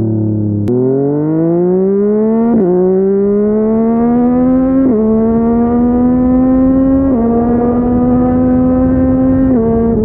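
Yamaha MT-09's three-cylinder engine through a Yoshimura R55 slip-on exhaust, pulling away through the gears. The engine note falls for a moment, then rises steadily, broken by four quick upshifts where the pitch drops sharply, about every two seconds.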